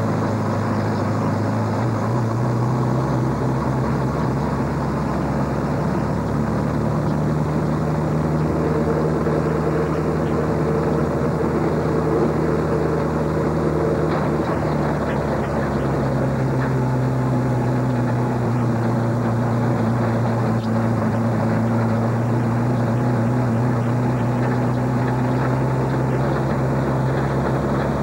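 Race truck's engine running at low speed, heard from inside the cab: a steady drone whose pitch steps up about three seconds in and settles lower about halfway through.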